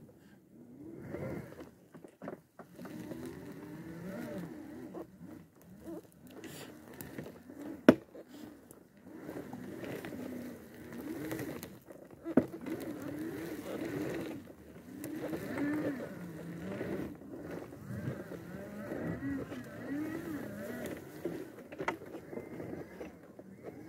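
Electric drive motors of an Extreme X8 power wheelchair whining as it drives over uneven forest ground, the pitch rising and falling with the changing load, with a sharp knock about 8 seconds in and another near 12 seconds as the chair jolts over the terrain.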